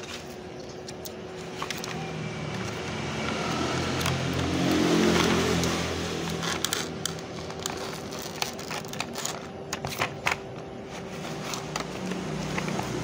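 Clear plastic clamshell packaging clicking, crackling and scraping as grafting shears are packed back into it. A passing motor vehicle swells and fades, loudest about five seconds in.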